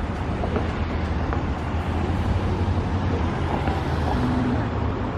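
Street traffic: a steady low rumble of cars running through an intersection.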